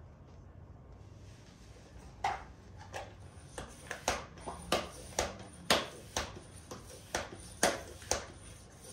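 Bicycle pump being worked by hand, about two strokes a second. Each stroke gives a short, sharp rush of air as a bike tyre is inflated.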